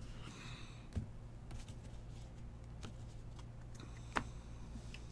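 Trading cards handled by hand: faint rustling and sliding, with a couple of light clicks about a second in and about four seconds in, over a steady low hum.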